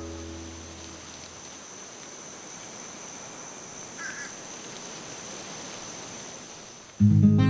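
Quiet outdoor ambience: a steady hiss with a thin, steady high-pitched tone over it and one short high chirp about four seconds in. A guitar note dies away at the start, and acoustic guitar music cuts in suddenly near the end.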